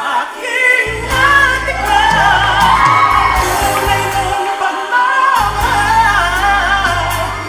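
A song: one voice singing long, wavering held notes over sustained low backing chords. The low backing drops out briefly near the start and again around the middle.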